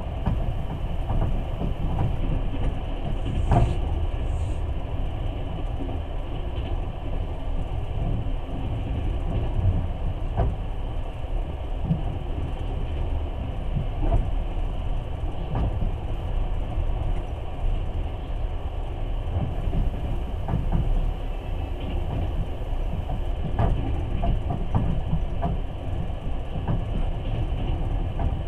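Passenger train running at speed, heard from inside the carriage: a steady low rumble of wheels on rail with scattered clicks and knocks.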